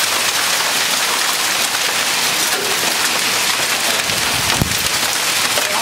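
Hail mixed with heavy rain pelting down in a dense, steady hiss.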